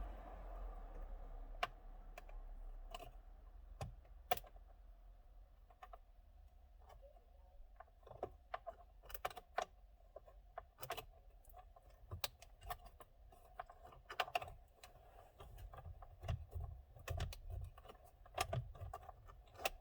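Scattered sharp clicks and light metal clinks of hand tools working the fasteners of a car's stock steering wheel, coming thicker after the first several seconds, over a faint steady hum.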